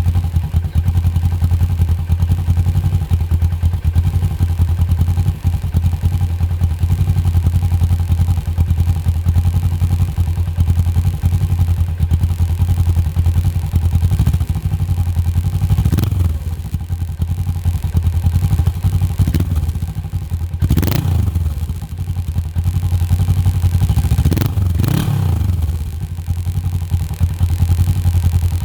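Stock 2004 Suzuki GS500E's 487 cc air-cooled parallel-twin engine idling steadily through its standard exhaust, then blipped four times: once about halfway through, once again a few seconds later, and twice in quick succession near the end, each rev rising and falling back to idle.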